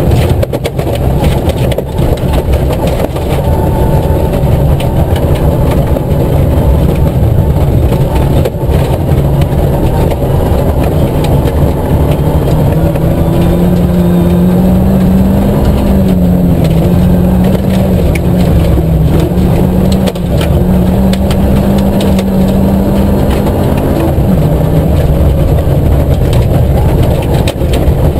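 Nissan Micra K11 rally car's four-cylinder engine heard from inside the cabin, pulling hard between about 3,000 and 5,000 rpm in second and third gear, its note rising and falling with the throttle. Tyres on loose gravel add a steady rumble, with sharp ticks of stones against the car.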